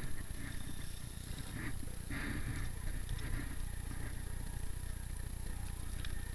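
Steady low rumble of air buffeting a moving camera's microphone, with soft, irregular scraping of skis sliding slowly over snow.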